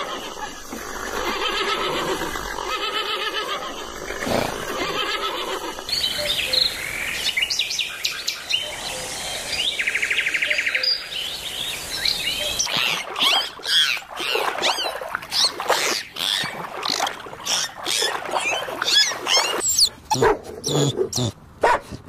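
A run of animal calls and bird chirps, changing abruptly every few seconds: warbling calls at first, a short pulsing trill about ten seconds in, then many quick chirps.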